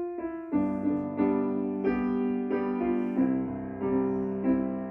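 Piano playing the introduction to a simple sung scripture song, sustained chords and notes struck at a slow, even pulse.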